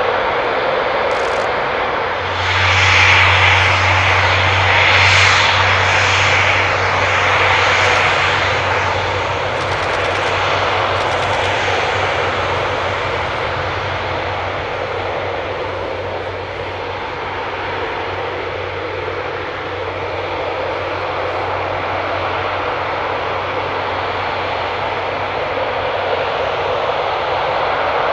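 Eurofighter Typhoon jet engines running at taxi power, a steady jet roar with a whine. It grows louder about two seconds in for several seconds as a jet taxis close by, then settles back to a steady level.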